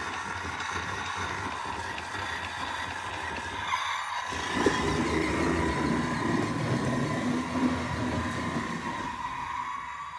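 Road Rippers Triceratops battery-powered toy monster truck running at full speed across a hard floor, with a steady motor whine.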